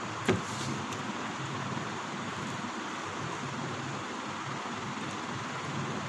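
Steady background hiss with an on-and-off low hum, and a single sharp knock about a third of a second in.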